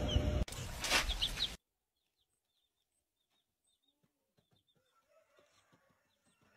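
Baby chicks peeping: a few short, high cheeps over a loud rushing noise that cuts off about a second and a half in, followed by faint scattered peeps and small clicks.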